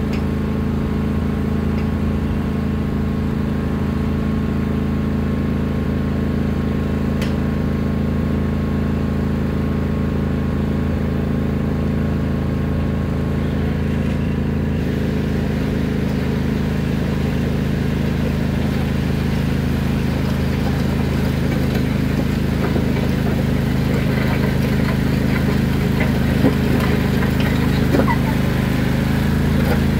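Craftsman lawn tractor engine running steadily as it pushes its front blade through the driveway gravel, getting louder in the last several seconds as it comes closer, with scattered crunches and scrapes of gravel in the second half.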